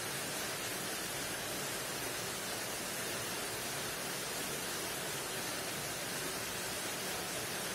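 Steady hiss of background noise, even throughout, with no distinct events.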